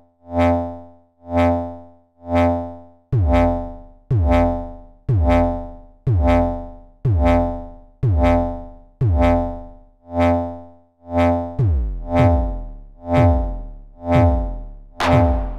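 Modular synthesizer voice shaped by a Make Noise Contour envelope cycling on its own: a rich pitched tone repeats about once a second, each note swelling and then dying away. From about three seconds in, each note starts sharply with a falling pitch sweep in the low end, and near the end extra notes come in between the beats.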